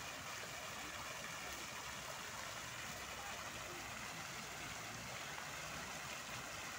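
Fountain with a ring of vertical water jets splashing steadily back into its pool.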